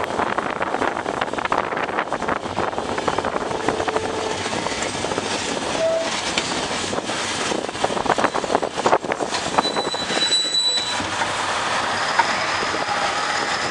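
Wheels of a slow steam-hauled brakevan train clattering and knocking over rail joints in a steady rolling rumble. A brief high-pitched wheel squeal comes about ten seconds in.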